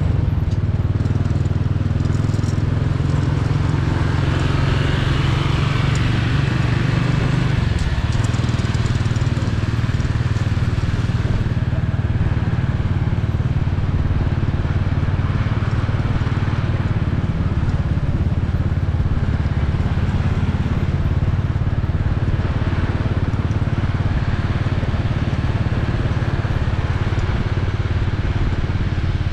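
Motorcycle running steadily while being ridden, with a constant low rumble of engine and road noise.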